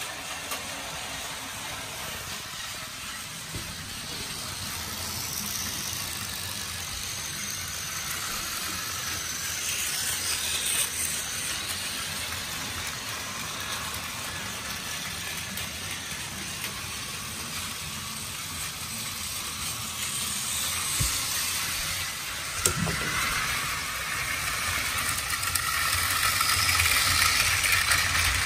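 Several battery-powered Plarail toy trains running on plastic track: a steady whirring hiss of small motors and wheels, with one knock about two-thirds through, growing louder near the end as a train passes close.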